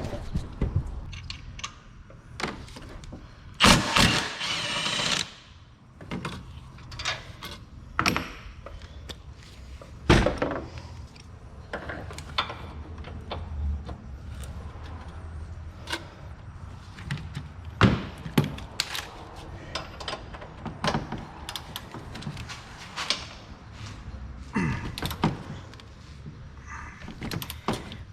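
Hand tools on metal: a socket wrench working the 15 mm bolts of an engine-mount brace, with scattered clicks, clanks and knocks and a longer, louder stretch of noise about four seconds in.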